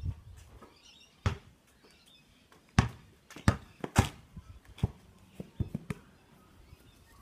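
Basketball bouncing on hard ground: about ten sharp thuds at uneven intervals, the loudest around three and four seconds in.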